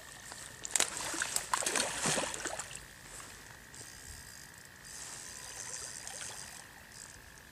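A hooked grass carp thrashing and splashing at the water's surface while being played on a rod, with a run of splashes about one to two and a half seconds in, then quieter water noise.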